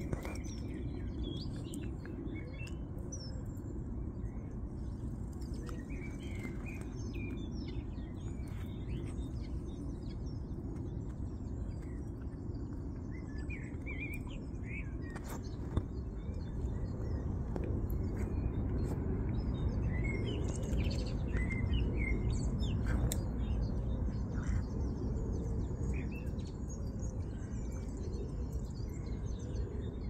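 Small birds chirping, many short high calls throughout, over a low steady rumble.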